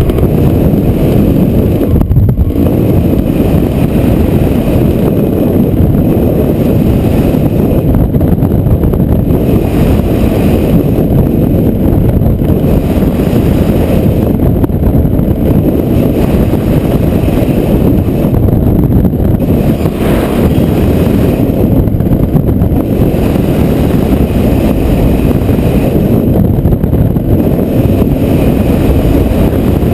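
Heavy wind buffeting the microphone in a desert dust storm: a loud, steady low rumble with no breaks.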